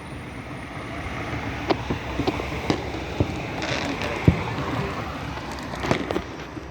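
Outdoor background noise with scattered sharp pops from distant fireworks, the loudest about four seconds in.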